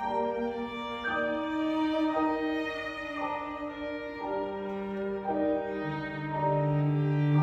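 Live string trio of bowed upper strings and cello playing a slow passage of sustained notes, the harmony shifting about once a second. Near the end the cello comes in with a low held note, the loudest part of the passage.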